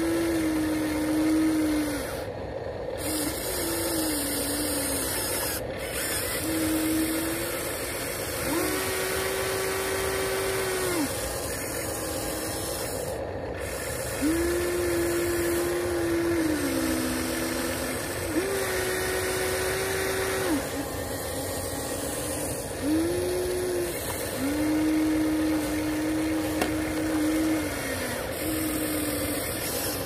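Electric motors of a Huina RC excavator whining as the boom, stick and bucket move. The steady whine starts and stops about ten times in stretches of one to three seconds, some dipping in pitch as they end.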